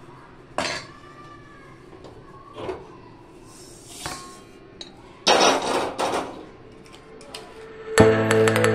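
Utensil knocking and scraping on metal cookware during food prep with white powder: a few separate knocks, each with a brief metallic ring, then a longer scrape a little past halfway. Music comes in near the end.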